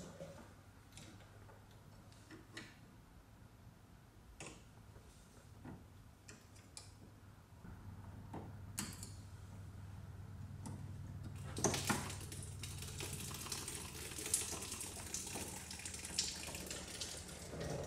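Small plastic clicks and taps as a pick tool and fingers work the quick-connect clip on a fuel line at the fuel filter. From about twelve seconds in comes a steady hiss of liquid running, with clicks in it: fuel trickling out of the released line.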